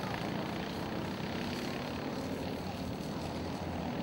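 Racing go-kart engines buzzing steadily as karts run through the circuit.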